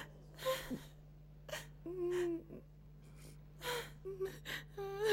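A woman sobbing: gasping breaths in and out, with a drawn-out whimpering cry about two seconds in.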